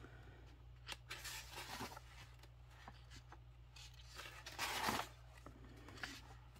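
Paper pages of a coloring book being turned and handled, soft rustles with a louder page turn near the end.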